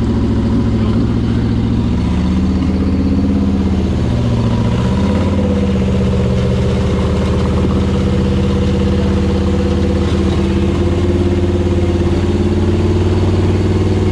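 Rock bouncer buggy's engine running steadily at low revs. Its pitch rises and falls a few times between about two and six seconds in, then holds.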